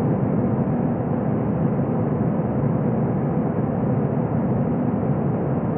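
Airbus A321-100 cabin noise during the climb after takeoff: a steady low jet-engine drone mixed with airflow rush, heard from inside the cabin.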